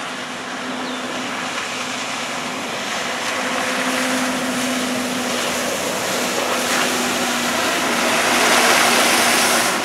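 Ski-tow boat's inboard engine running at speed, a steady hum under the rush of hull wake and the skier's spray. The rushing grows louder as the boat and skier pass close, loudest near the end.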